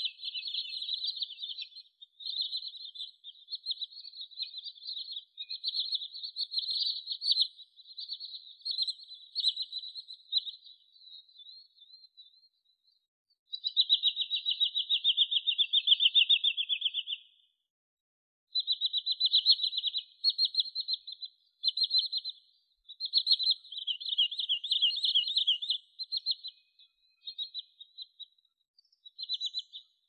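Sandpiper calling in fast trilled runs of rapid, high notes, separated by short pauses. The loudest and steadiest run, slightly lower in pitch, comes about halfway through.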